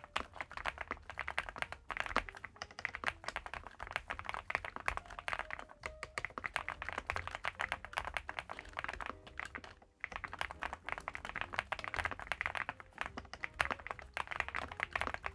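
Steady, fast typing on the Infi75, a 75% gasket-mount mechanical keyboard whose case is packed with layered foam, giving a muted "koto-koto" keystroke sound. There is a brief pause about ten seconds in.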